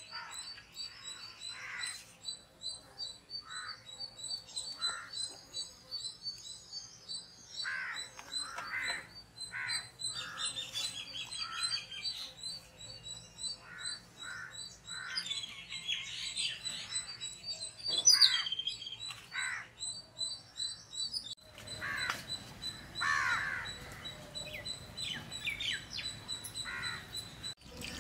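Birds calling and chirping outdoors in short repeated calls, over a steady high pulsing trill. A single sharp knock comes about 18 seconds in.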